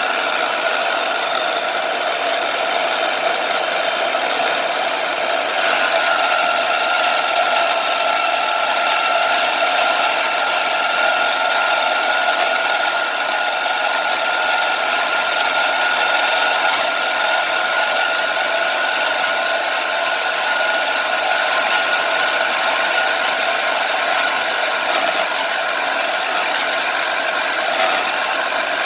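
Power tool cutting through a piece of metal tubing, running continuously with a steady high whine that grows stronger and shifts slightly about five seconds in.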